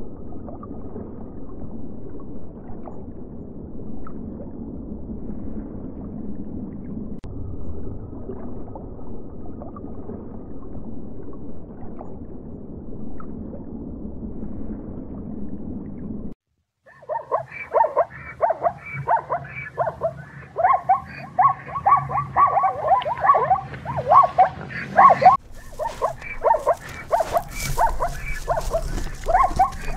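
Animal sounds in two parts. First a steady low rumbling noise for about sixteen seconds. Then, after a brief break, many rapid high-pitched calls come several a second until the end.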